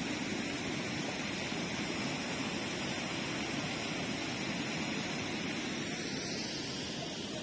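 Steady rushing noise with no distinct events, even and unchanging throughout.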